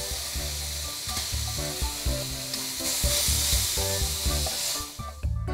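Pineapple rings sizzling in bubbling caramelized sugar in a frying pan, a steady hiss. The sizzle cuts off abruptly near the end.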